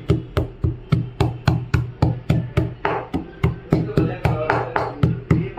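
Pestle pounding lumps of musambaram (dried aloe resin) in a mortar, a steady rhythm of dull knocks about three to four a second, crushing it toward a fine powder.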